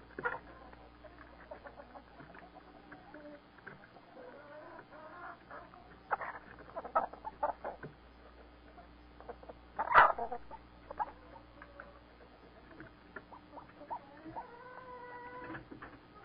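Chickens clucking in short scattered calls, with one loud sharp call about ten seconds in and a drawn-out call near the end.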